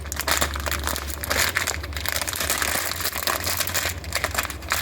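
Plastic crinkling and rustling while the new rubber strap latches are handled, an irregular crackle that runs on without pause.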